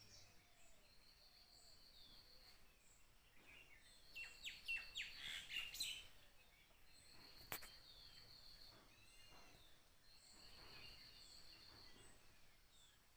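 Faint birds chirping, with a high trill that repeats every couple of seconds. A flurry of louder chirps comes about four to six seconds in, and a single sharp click about halfway through.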